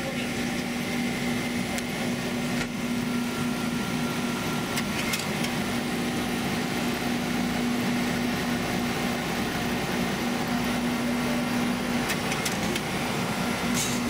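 Under-floor machinery of a railway coach running: a steady mechanical hum with a constant droning tone that drops out briefly about twelve seconds in.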